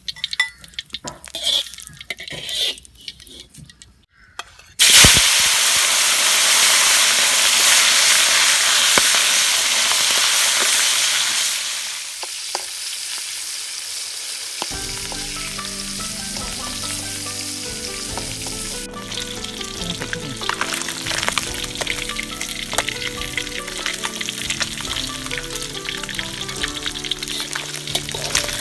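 Pieces of catfish frying in hot oil in a wok. A few knocks of a metal spatula against the wok come first; about five seconds in, a loud sizzle starts suddenly as the fish goes into the oil, then eases to a steady, quieter frying. Background music comes in about halfway through.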